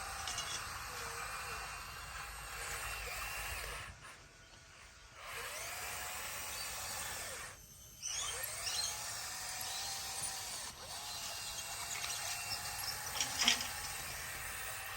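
Bulldozer working, its engine and drive running steadily with a whine that rises and falls every second or two. The sound drops away briefly twice, around four seconds in and just before eight seconds.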